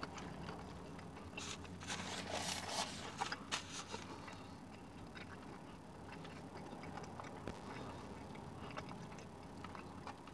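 Sandwich wrapper rustling and crinkling in the hands, loudest in a few bursts early on, with small clicks of eating between, over a low steady hum.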